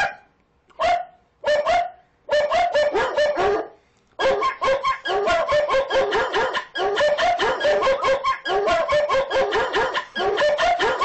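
Rapid dog-like barking and yapping from more than one voice, in short bursts for the first few seconds and then without a break from about four seconds in.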